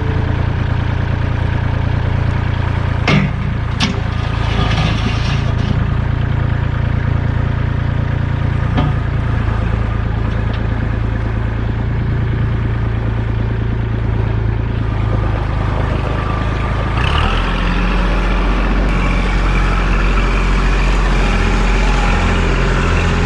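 Engine running steadily, its note shifting about 3 seconds in and again at about 17 seconds, with a few sharp knocks in the first few seconds.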